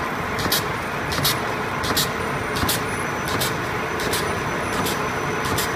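Popcorn paper bag making machine running: a steady mechanical din with a short, high hiss repeating evenly about every 0.7 seconds as the machine cycles.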